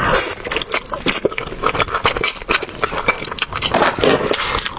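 Close-miked eating of spicy fire noodles: slurping and chewing, a dense run of wet clicks and smacks with a brief hissy slurp at the start.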